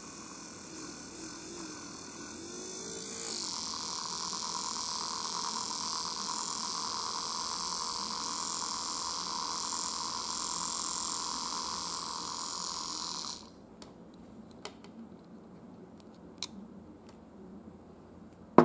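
Maxon 2140.937 brushed DC motor running: a steady whine and hiss that gets louder about three seconds in, then cuts off suddenly about two-thirds of the way through as power is removed. A few light clicks follow.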